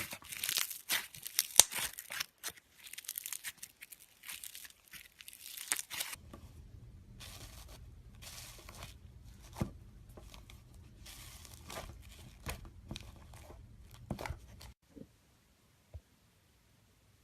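Slime being handled and pulled apart, making quick crackling, tearing sounds. Dense for the first six seconds, then sparser crackles over a low hum, stopping a couple of seconds before the end.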